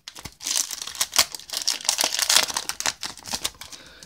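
Foil booster-pack wrapper crinkling and crackling as it is handled and torn open by hand, a dense run of small crackles that dies down near the end.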